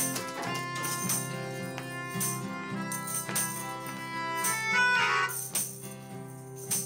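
A melodica, an acoustic guitar and a tambourine playing a tune together: held reedy melody notes over the guitar, with the tambourine struck in rhythm.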